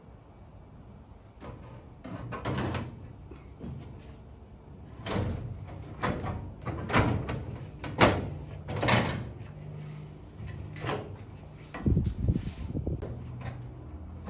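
A dozen or so irregular knocks and clunks of sheet-metal car body parts being handled and set in place, the loudest about eight seconds in.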